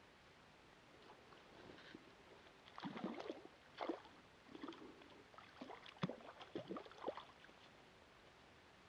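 Water splashing and sloshing at the lake's edge in a series of short, irregular splashes, loudest a few seconds in, then dying away near the end.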